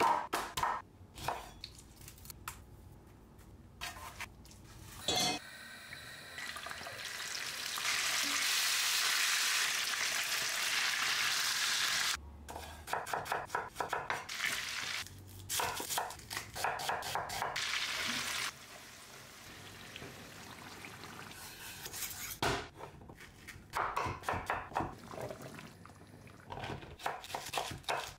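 Kitchen sounds in sequence: hands rubbing and squishing marinade onto chicken in a metal baking tin, then chicken sizzling as it browns in hot oil, loudest and steady for a few seconds about eight seconds in. A chef's knife then chops tomatoes and okra on a wooden board in quick strings of cuts.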